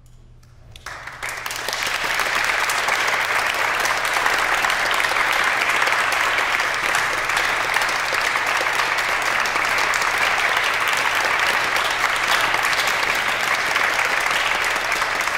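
Audience applauding: after a brief hush, the clapping starts about a second in and then holds steady.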